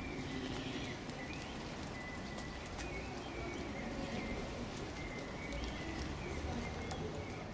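Mouflon hooves clicking and tapping on concrete steps as the animals walk about, scattered irregular clicks.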